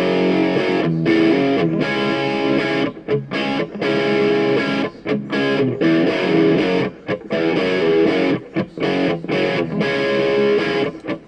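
Outro music led by guitar, playing steadily with short rhythmic breaks.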